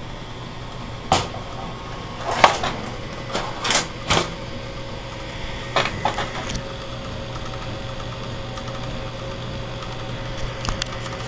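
Several irregular sharp clicks and knocks, bunched in the first half, over a steady machine hum with a faint constant tone.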